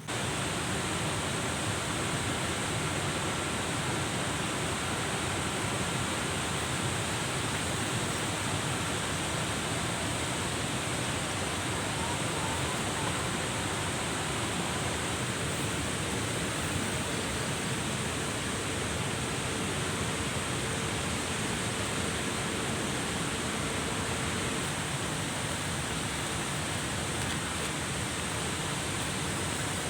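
Steady, even rush of flowing water, with no change in level throughout.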